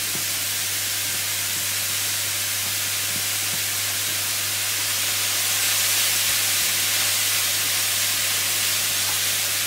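Freshly chopped wet green herbs hissing and steaming in a hot frying pan: a steady sizzle as the greens start to fry.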